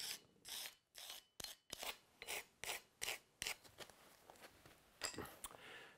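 Pencil scratching on a concrete slab in a series of short, faint strokes as it marks out the outline of bricks, with a pause about four seconds in.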